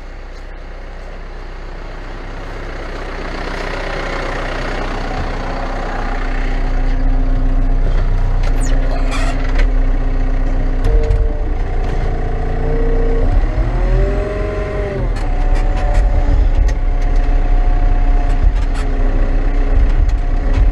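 Caterpillar 924F wheel loader's diesel engine revving up and working hard as the loader pushes against a tree. It gets louder over the first several seconds, then runs steadily, with a note that dips and rises about two-thirds of the way through.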